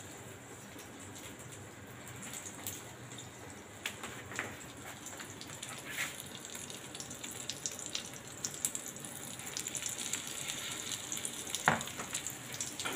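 Egg-and-flour-battered chicken frying in a pan of hot oil: a sizzling hiss with scattered crackles that grows louder in the second half. A single sharp click comes a little before the end.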